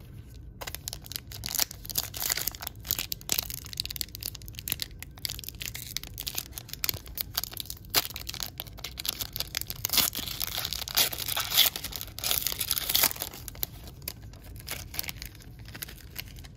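Foil wrapper of a 2022 Upper Deck AEW trading-card pack being torn open and crumpled by hand: a dense crinkling and crackling that starts about half a second in, grows loudest toward the end, then dies away.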